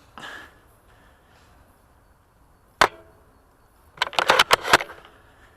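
A VSR-10 spring-powered bolt-action airsoft sniper rifle firing a single sharp shot, then its bolt being worked in a quick run of about seven clacks a little over a second later. A brief rustle comes right at the start.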